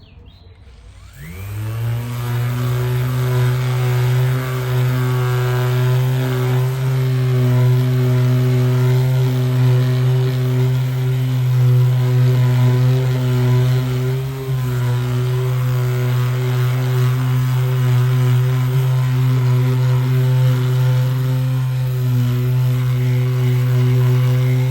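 Electric power sander spinning up about a second in, then running steadily with a constant hum as it sands a car bumper with fine 400-grit paper to remove coarser sanding scratches. The hum dips briefly about halfway through.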